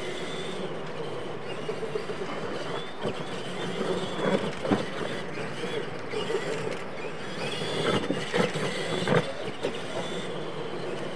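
Electric R/C monster trucks of the Tamiya Clod Buster type racing on dirt: a wavering high motor-and-gear whine over gravelly tyre noise. Several sharp thumps of the trucks landing and knocking about, one near the middle and a few more about two-thirds of the way through.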